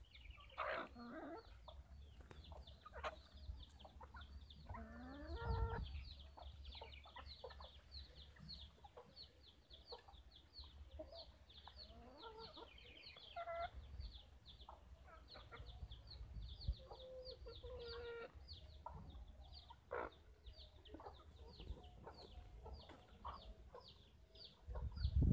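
Backyard chickens, black Gigante Negro hens and a rooster, clucking now and then while feeding, over a steady run of short, high chirps. A louder rumble comes in right at the end.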